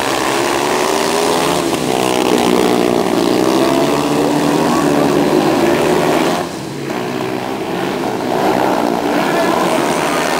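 A pack of speedway motorcycles, 500 cc single-cylinder methanol-burning engines, running at full throttle away from the start and into the bend, the pitch rising and falling as the riders work the throttle. The sound drops briefly about six and a half seconds in, then picks up again.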